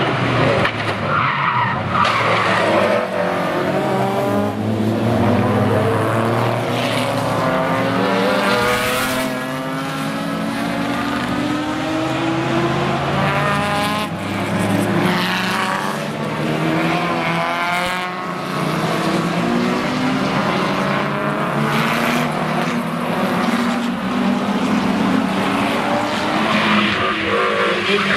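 Historic touring race cars, among them BMW E30 M3s and a Porsche 911, running through a chicane one after another. Several engines are heard at once, their pitch dropping and rising again and again as they brake, change gear and accelerate away.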